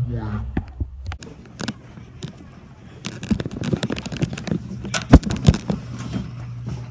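Handling noise on a phone's microphone: clicks, scraping and knocks as the phone is moved about and rubbed against clothing, with the sharpest knocks about five seconds in, over a low steady hum.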